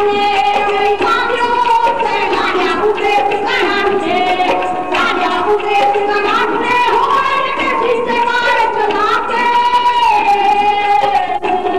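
A dhadi group singing a vaar together, high women's voices holding long notes and gliding between them, over quick strokes of the dhadd hand drum.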